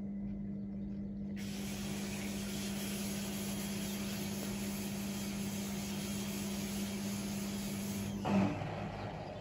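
ATLANT 45Y82 front-loading washing machine draining after the prewash: the drain pump hums steadily while water rushes out through it. Near the end the hum breaks off with a brief louder burst of noise.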